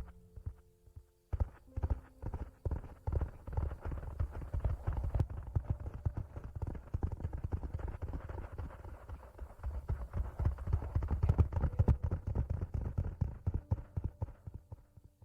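ASMR rustling and rubbing close against the microphone: a dense, irregular run of soft taps and scrapes that starts about a second in.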